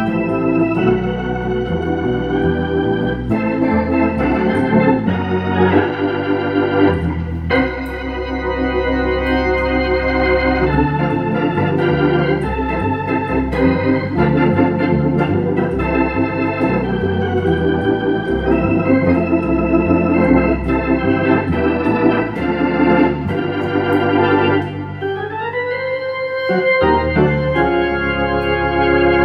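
Hammond organ played through a Leslie rotating speaker: sustained chords over a moving bass line. Near the end the notes slide upward.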